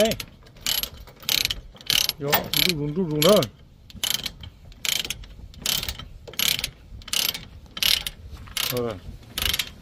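Ratchet chain load binder being cranked tight by its lever, the pawl clicking about twice a second as it takes up the tie-down chain.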